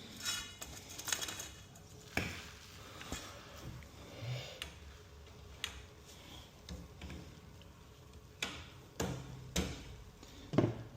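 Scattered light clicks and knocks of copper pipe and a fitting being handled, with flux applied and the pipe pushed into the fitting.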